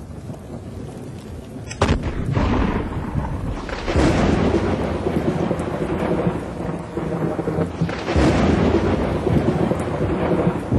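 Thunderstorm with heavy rain hissing steadily. A sharp thunderclap comes about two seconds in, and long rumbles of thunder swell up about four and eight seconds in.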